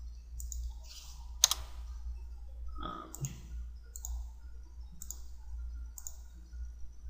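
Computer mouse clicking, several single clicks spread out, the sharpest about one and a half seconds in, then roughly one a second, over a steady low hum.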